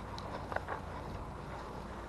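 Footsteps across a grass lawn: a few soft, irregular thuds and light rustles over a low steady background noise.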